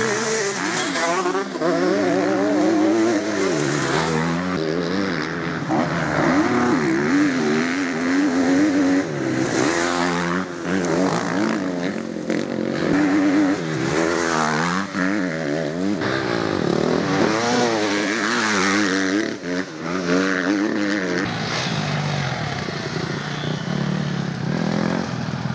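Motocross dirt bike engines revving hard, the pitch repeatedly rising and falling as the riders accelerate, shift and back off around the dirt track.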